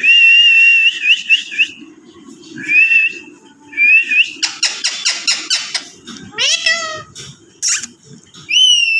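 Pet parrot whistling and calling: a long held whistle at the start, then shorter rising whistles, a quick run of about eight chirps a second in the middle, and rising and falling calls with a short harsh squawk near the end.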